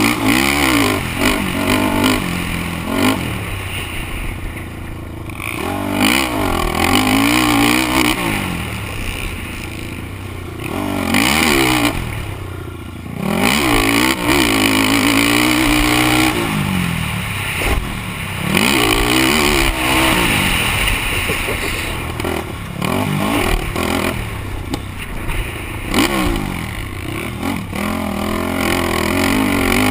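A 2004 Honda TRX450R quad's single-cylinder four-stroke engine racing on a motocross track. It revs up and falls back again and again as the throttle is worked, over a steady rush of wind and rough-ground noise.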